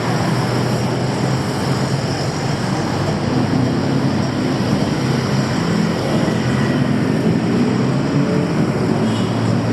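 Steady, loud traffic noise with the low hum of engines running.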